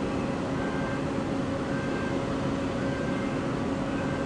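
Steady drone of a parked Boeing 737 jet airliner: an even rushing noise with a low hum underneath.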